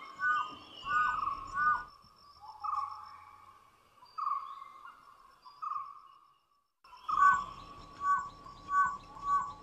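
Dhole (Indian wild dog) giving its whistling call, a contact call to the pups after a kill. Short clear whistles repeat about twice a second. They fall back to a few fainter, longer notes with gaps in the middle, then return louder near the end.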